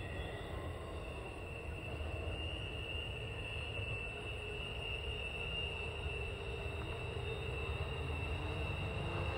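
Freight train cars rolling past with a steady low rumble, and a thin steady high tone over it.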